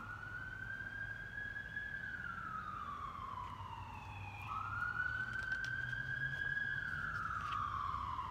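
Emergency vehicle siren on a wail setting: one tone slowly rising and falling, about one sweep every four to five seconds.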